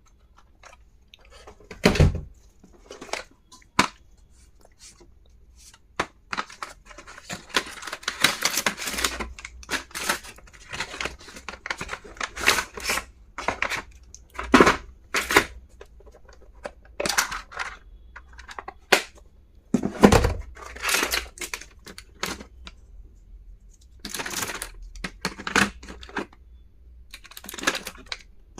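Small stationery items and their packaging being handled: an uneven series of clicks and taps, with two short stretches of rustling and tearing. Two heavier knocks come about two seconds in and around twenty seconds in.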